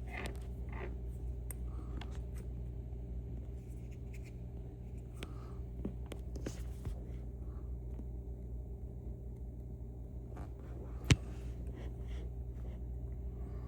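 Scattered faint clicks and light scrapes of small metal lock parts being handled, with one sharp click about eleven seconds in, over a steady low hum.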